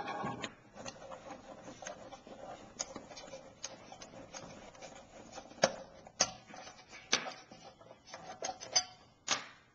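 Hands handling a small kit transceiver's case to open it up: scattered light clicks and knocks, with several sharper taps spread through.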